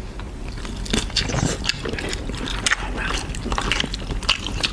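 Biting and chewing shrimp, with many irregular wet clicks and crackles from mouth and shell.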